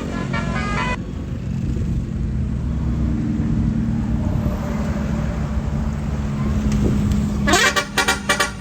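Tour bus engine running with a low rumble, after a multi-tone telolet horn chord that cuts off about a second in. Near the end a basuri telolet horn starts up in quick, stuttering blasts of stacked tones.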